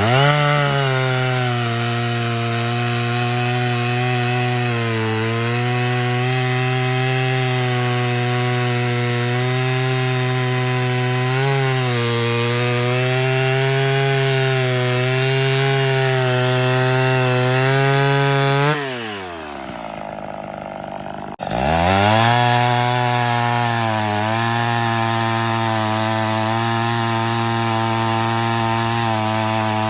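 Ported vintage Homelite two-stroke chainsaw running flat out at a steady high pitch, dipping slightly now and then as it cuts wood. About 19 seconds in, the revs fall away sharply and it goes quieter for a couple of seconds, then it comes back suddenly at full revs.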